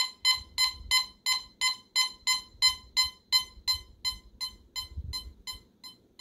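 Teknetics Omega 8500 metal detector sounding its target tone as a string of short beeps, about three a second. The beeps grow steadily fainter over the last few seconds, the volume following signal strength as the detector's proportional audio does.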